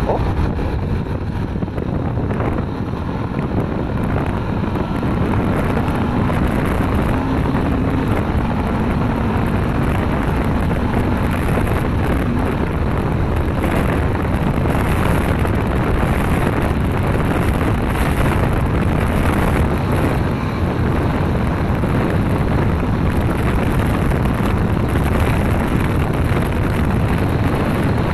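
Yamaha R15M sport motorcycle's 155 cc single-cylinder engine running at highway speed under heavy wind noise on the microphone. It grows louder over the first few seconds as the bike speeds up, then holds steady.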